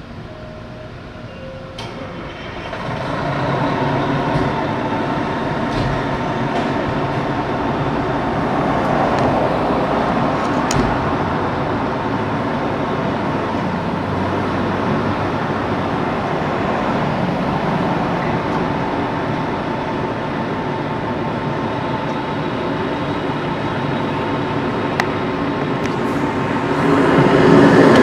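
Fire truck engine running with steady heavy-vehicle noise that grows louder a few seconds in. Near the end its siren starts winding up in rising wails.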